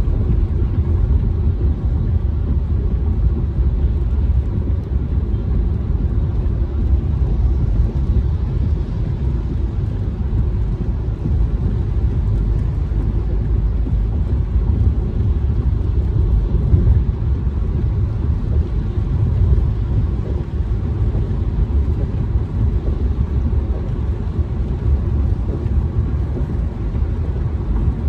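Steady low rumble of road and engine noise inside a car's cabin while driving on a wet freeway.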